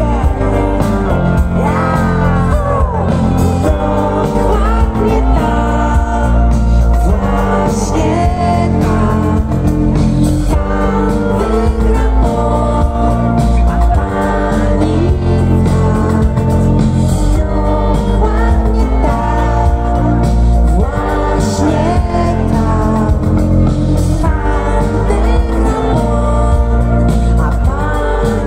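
Rock band playing live through a big PA: a woman's sung lead vocal over electric guitar, keyboards, bass and drums. It is loud and heavy in the low end.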